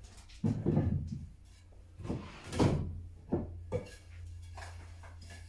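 Scrap wood offcuts being picked up and handled, with several knocks of wood on wood. The loudest knock comes about two and a half seconds in.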